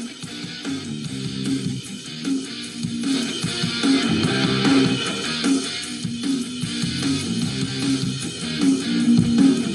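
Guitar-based rock music playing back from a tape on a Panasonic RQ-V150 personal cassette player, a 40-year-old unit just revived.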